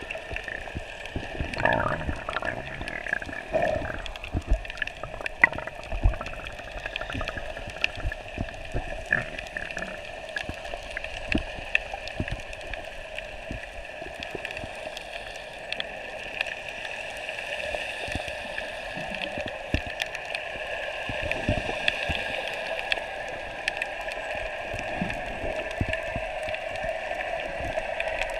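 Underwater sound picked up by a camera held below the surface: a muffled, steady wash with many scattered short clicks and knocks.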